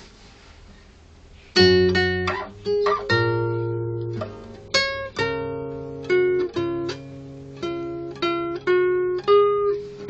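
Nylon-string classical guitar, fingerpicked. It comes in about one and a half seconds in with a plucked chord, then goes on with a slow introduction of plucked chords and single notes, each left to ring.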